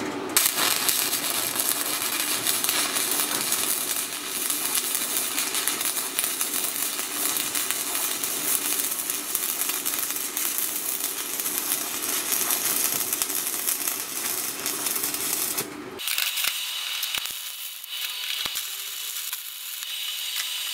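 Stick-welding arc from a DC inverter welder, a dense, steady crackle. About sixteen seconds in the sound changes to a thinner, higher hiss. The arc runs on pure DC output, even better than the rectified buzzbox.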